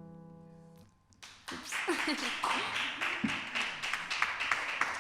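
The last acoustic guitar chord of a song rings and fades out. After a short gap, hands begin clapping in applause about a second in and keep going.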